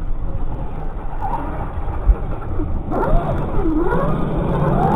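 Radio-controlled 1/8-scale buggy, its motor whine sweeping down and back up in pitch as it comes in close and slides on the dirt, from about three seconds in. Before that there is mostly a low rumble.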